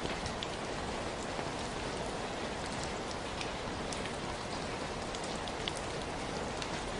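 Steady rainfall, an even hiss with scattered sharp drip and drop ticks on hard surfaces.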